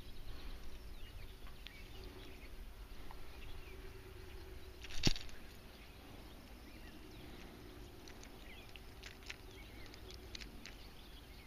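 Quiet outdoor background with handling noise on the camera: one sharp knock about five seconds in and a few faint clicks later on.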